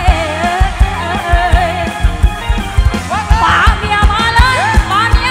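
Live band music: a woman sings lead over electric guitar, bass and a steady drum beat.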